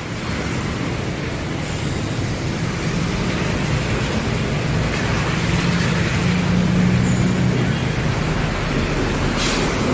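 Steady road-traffic noise of a busy street: vehicle engines running and passing. A low engine hum stands out most about six to seven seconds in.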